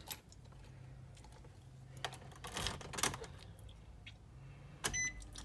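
Scattered clicks and knocks of someone settling in and handling controls in a Nissan NV 2500 van's cab, with a faint low hum, then a short electronic dashboard beep near the end.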